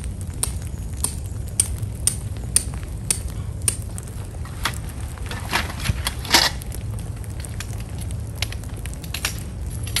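Crunching and scraping of tent poles and fabric being handled on snow, with a steady low rumble and faint regular ticks about twice a second. There are two louder scraping crunches about six seconds in.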